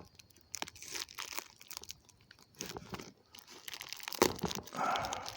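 Parcel packaging crinkling and rustling as it is handled, with scattered small crackles and a sharper knock about four seconds in.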